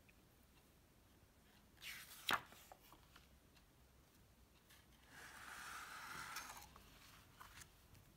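Pages of a paperback picture book handled and turned by hand: a short paper rustle with a sharp tap about two seconds in, then a longer paper rustle lasting about a second and a half.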